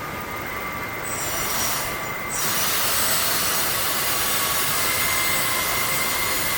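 Hydraulic system of a LESU 1/14 scale 9150 RC excavator running: a steady whine with several high tones over a hiss, getting louder about two seconds in.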